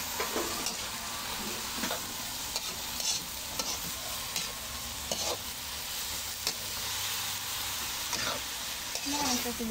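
Sliced bitter melon sizzling in hot oil in a wok while a spatula stirs it. The spatula scrapes and clinks against the pan every second or so over a steady sizzle.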